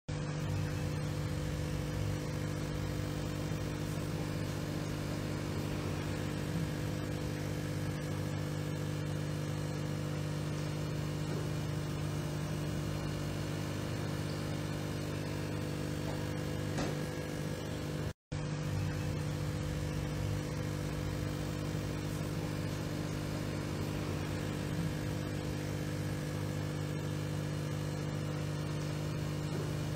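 Aquarium pump humming steadily with a low buzz and no change in pitch. The sound drops out for an instant about eighteen seconds in.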